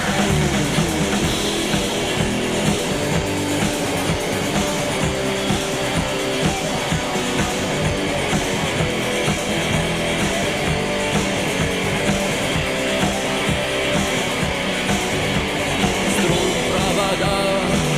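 Rock song's instrumental intro: guitar over a steady drum beat, before the vocals come in.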